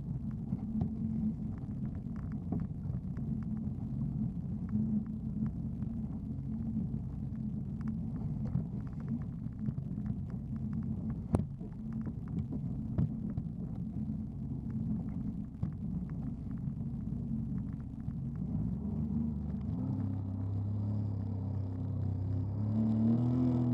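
Jet ski engine running steadily through choppy water, with frequent small knocks and splashes from the hull hitting the chop. About 19 seconds in the engine speeds up, its pitch rising, and right at the end it swells up and drops back.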